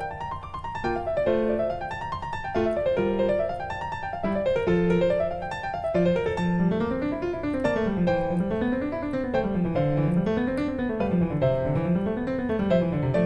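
Background piano music: flowing runs of notes that climb and fall in a repeating wave pattern.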